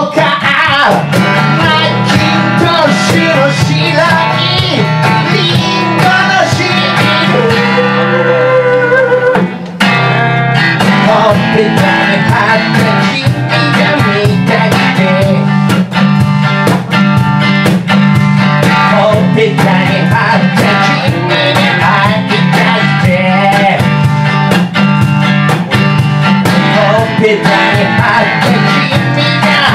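Live band music: a man singing while strumming a hollow-body electric guitar, with a cajón played by hand keeping a steady beat. The music drops out briefly about ten seconds in.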